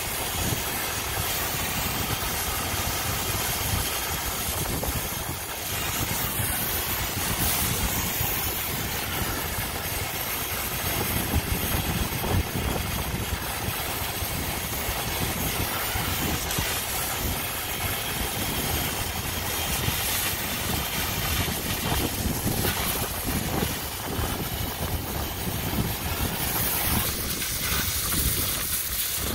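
Brazing torch flame hissing steadily at a copper joint on a refrigeration compressor, over a steady low rumble.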